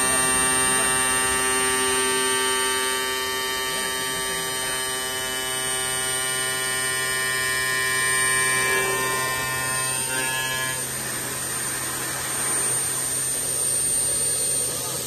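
Glass CNC milling machine's spindle running steadily as its water-cooled tool mills the edge of a circular cutout in a glass sheet: a low hum with a whine of several steady higher tones. About eleven seconds in the higher tones stop, leaving the hum and a hiss.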